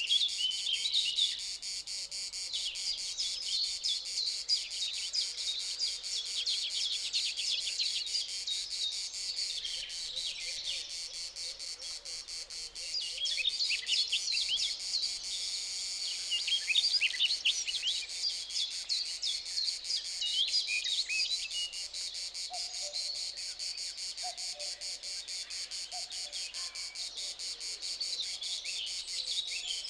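Insects trilling steadily, with many small birds chirping in quick, busy bursts over them.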